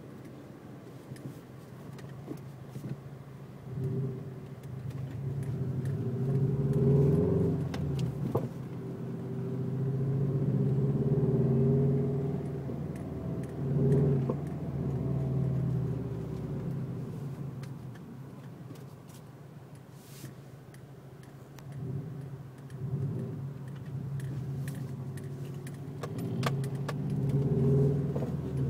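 2005 Subaru Legacy GT's turbocharged flat-four engine running, its revs rising and falling several times, with a few sharp knocks scattered through it: the clunk the owner traces to the area around the driveshaft.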